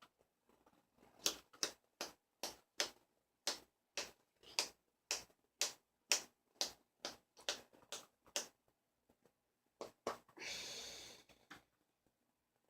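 A can of dipping tobacco being packed: sharp taps of the can flicked against the fingers, about two a second for some seven seconds. Near the end comes about a second of scraping noise.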